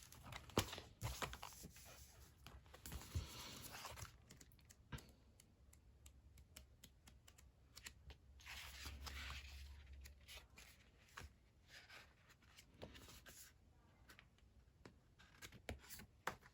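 Faint handling of paper sticker sheets and a planner: light taps and clicks, with two longer rustling, scraping strokes, the sound of stickers being peeled and paper being moved.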